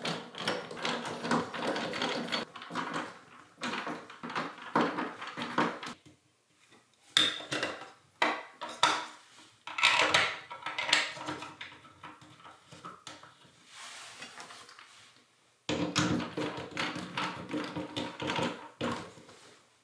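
Metal clinking, tapping and scraping of hand tools on bathtub drain and overflow fittings, in three bouts with short pauses between.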